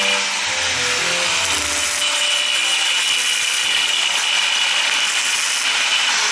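Semi-automatic wire-feed welder's arc crackling steadily as it welds a joint in steel square tubing.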